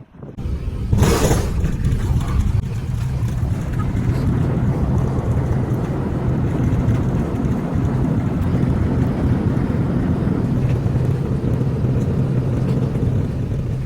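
An Airbus A380 jet landing: a loud, steady rumble with a low hum. It starts abruptly with a brief rushing surge about a second in and cuts off sharply at the end.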